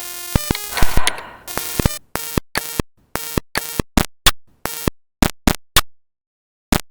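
Electronic intro jingle: a brief synth chord, then a quick string of short synthesized blips and clicks, about three or four a second, with a short pause near the end.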